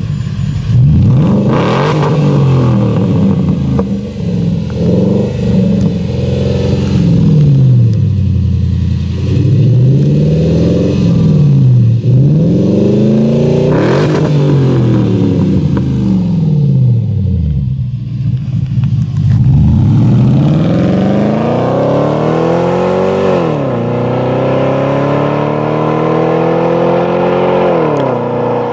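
Supercharged V8 of a Range Rover, straight-piped with its mufflers deleted and Dynomax Race Bullet mufflers in place of the stock resonators, revved repeatedly while standing. Later it pulls away hard, the exhaust note rising through a gear, dropping at a shift about three quarters of the way through and rising again before the next shift near the end.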